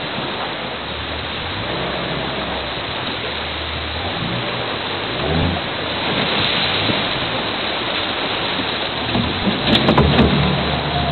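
Boat's motor running under loud rushing river water, a dense steady wash of noise. A few sharp knocks come about ten seconds in.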